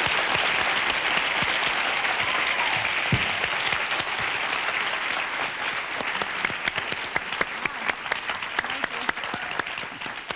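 Large audience applauding, a dense wash of clapping that is fullest at the start and slowly thins, with single claps standing out toward the end.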